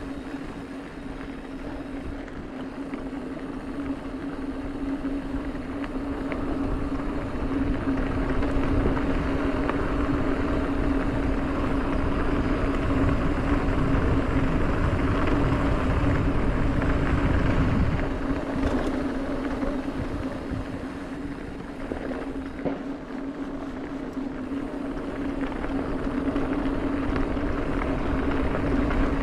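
Mountain bike coasting fast down a dirt fire road: the rear freehub gives a steady buzzing drone over tyre rumble on the dirt and wind on the microphone. It grows louder about a third of the way in, eases off past the middle, then rises again near the end.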